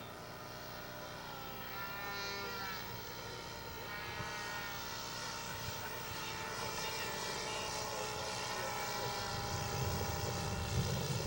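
Radio-controlled scale model Fleet biplane's engine and propeller running at low throttle on landing approach. The pitch bends about two and four seconds in, and the sound grows louder as the plane comes in.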